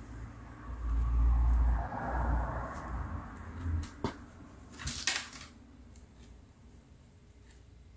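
Handling noise from hand-knitting with wooden needles and fine yarn: low, dull bumps in the first two seconds with a soft rustle, a sharp click about four seconds in and a louder double click about a second later.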